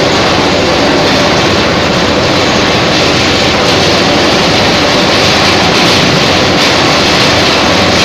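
Young areca nut husk-peeling machine running: a loud, steady mechanical noise with no breaks or changes.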